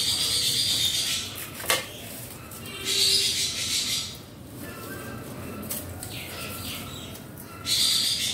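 Dry orchid leaves and sheaths rustling and tearing as they are stripped by hand, in three bursts, with one sharp click between the first two.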